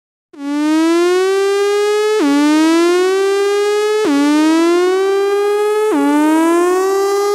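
Siren-like synthesizer tone in a dance-music intro, starting out of silence. It glides upward in pitch, drops back suddenly and rises again, about every two seconds.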